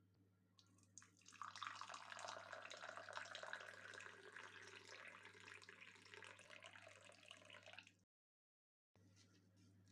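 Warm water being poured in a steady stream, starting about a second in and cutting off suddenly about eight seconds in.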